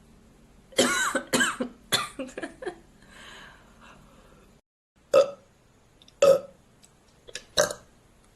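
A young woman burping: a long, loud burp broken into several pulses about a second in, then, after a cut, three short single burps about a second apart.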